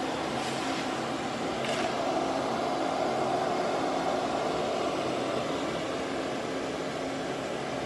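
CNC router carving wood: the spindle runs steadily as the bit cuts, a continuous rushing whir with a low hum under it.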